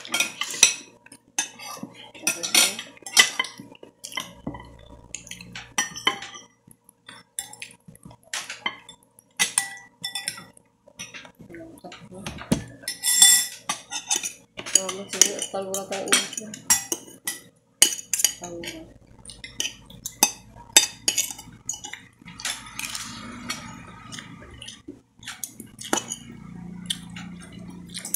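Metal spoon and fork clinking and scraping against a plate as rice and chicken adobo are scooped up, in many short irregular taps.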